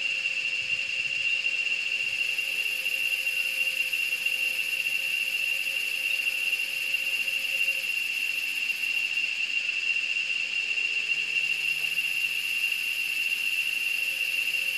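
A steady high-pitched whine holds one unchanging pitch throughout, with a fainter low hum under it that fades out about halfway through.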